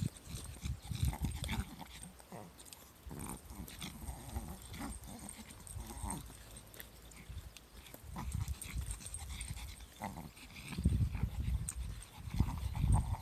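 Footsteps and the small leashed dog's movements on an asphalt path, mixed with irregular rubs and knocks of the handheld camera. Louder low thumps come near the end.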